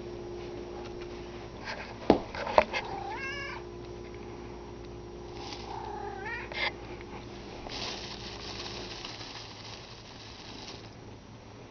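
A domestic cat meowing twice in short calls, about three and about six seconds in, the first wavering in pitch and the second rising. Just before, two sharp knocks are the loudest sounds, and later comes a few seconds of rustling.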